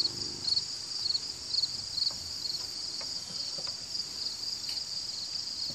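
Crickets chirping: a steady high insect chorus with chirps repeating a few times a second, and a few faint clicks.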